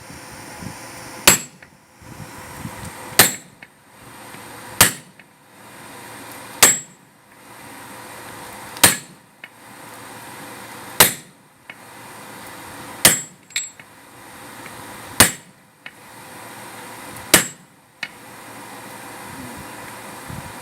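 Hammer blows on hot steel at the anvil, drawing out a square taper: about ten sharp ringing strikes, roughly one every two seconds, with one quick lighter tap just after one of them. A steady hiss runs between the blows, and the strikes stop a few seconds before the end.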